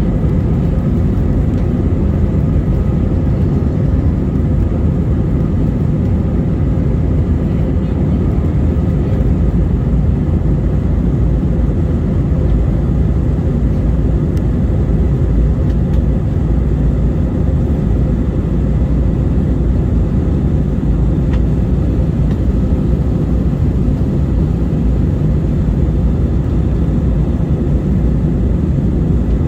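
Steady cabin noise inside a passenger airliner in flight: the even low rumble of engines and airflow, with a faint steady hum, unchanging throughout.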